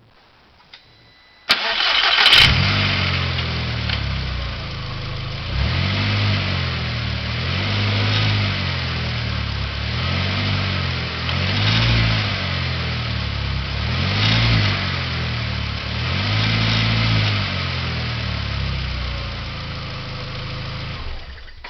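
VW GTI engine cranking and catching about a second and a half in, then running with its pitch rising and falling every two seconds or so as it is revved lightly and let back down, stopping just before the end. It is run this way to show a bad motor mount.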